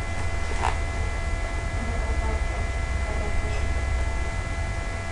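Steady low electrical hum with a few faint high steady whines, the background noise of the recording setup, with one faint click just under a second in.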